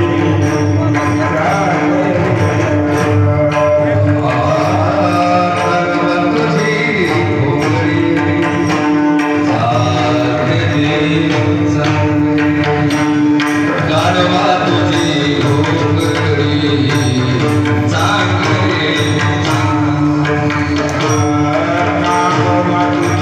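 A devotional song sung by a male voice with gliding, ornamented lines over a steady held drone, accompanied by hand drum and small cymbals striking throughout.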